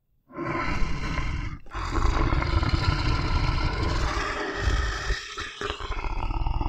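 Lion roaring and growling: long, rough, deep calls that begin just after a silence, with two short breaks between them.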